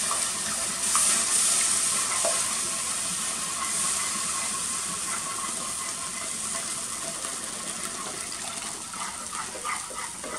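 Hot roux sizzling in an enamelled cast-iron pot as cold beef stock is poured in and stirred with a spatula; the hiss slowly dies down as the liquid cools the pan. A few light scrapes of the spatula near the end.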